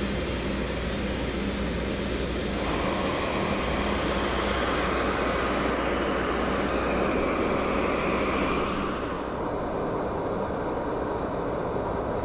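Siemens Charger SCV-42 diesel locomotive standing at a platform with its engine running: a steady, fairly loud hum and fan noise. The higher part of the noise drops away about nine seconds in.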